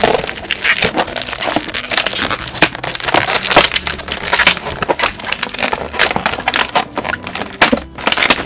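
Latex modelling balloons rubbing and squeaking under the fingers as a small 160 balloon bow is twisted onto a lobe of an inflated 6-inch heart balloon. It comes as a dense, uneven run of short squeaks and crinkles.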